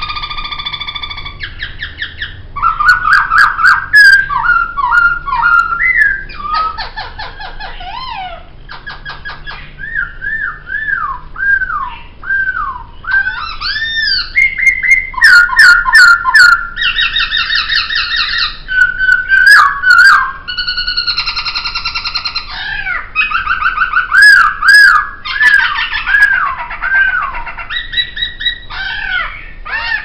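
Poksay (laughingthrush) singing a long, varied song of loud whistled phrases: slurred up-and-down notes, rapid trills and short motifs repeated several times, with brief pauses between phrases.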